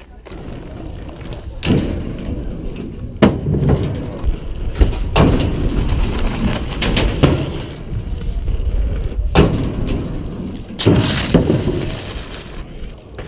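Wheels rolling over skatepark asphalt and ramps with a heavy low rumble, broken by about six sharp knocks and clacks as wheels and inline skates hit ramp edges, a rail and a ledge.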